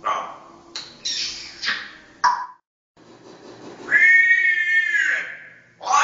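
African grey parrot calling loudly: a run of short calls, then one long drawn-out call about four seconds in, with another starting near the end.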